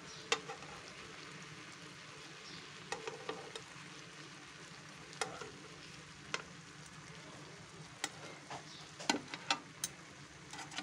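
Mutton koftas sizzling steadily as they shallow-fry in oil, frothy with the moisture the meat has released, in a nonstick pan. Scattered sharp clicks and taps of steel tongs come as the koftas are turned, clustered most thickly near the end.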